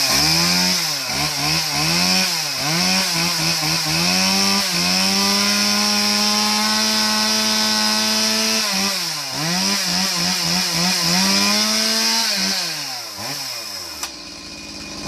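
Stihl MS180C two-stroke chainsaw, freshly cold-started, being revved in a series of quick throttle blips and held at high revs for a few seconds, twice over. It then drops back to a lower, quieter idle near the end.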